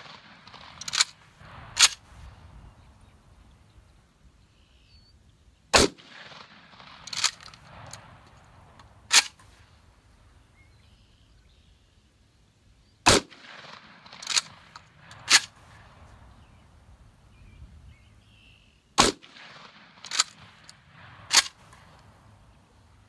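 Three 12-gauge shots from a Vepr 12 shotgun, about six to seven seconds apart. The gas system is disabled, so each shot is followed by two sharp metallic clacks as the bolt is racked back and let forward by hand. One such pair of clacks also comes in the first two seconds.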